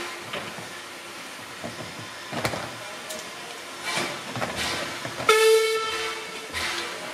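Steam whistle of LSWR O2 class tank locomotive No. 24 giving one short blast about five seconds in, as it stands ready to depart with the token in hand. Short hisses of steam come and go around it.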